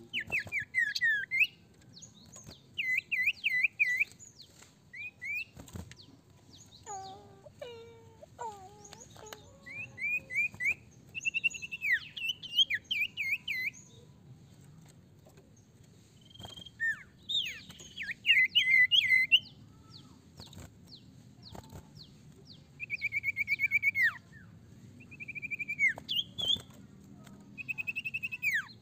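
Sirtu (common iora) singing: repeated short bursts of rapid high chirps and trills, many slurring downward, with pauses between them, and a few lower calls about a quarter of the way in.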